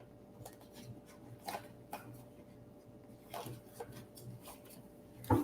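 Tarot cards being handled: a few faint, scattered taps and rustles with quiet between them.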